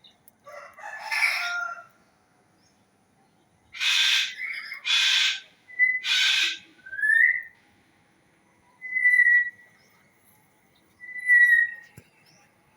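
Bird calling: a few loud, harsh calls, followed by three short whistled notes, the first one rising.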